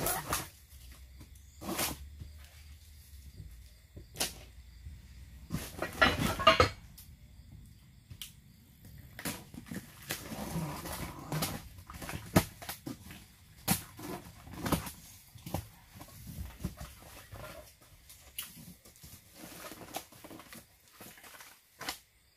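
A cardboard box being unpacked: plastic strapping pulled off, packing tape slit with a knife, the flaps torn open and packing paper rustled, as a run of irregular scrapes, knocks and tearing noises. The loudest burst comes about six seconds in.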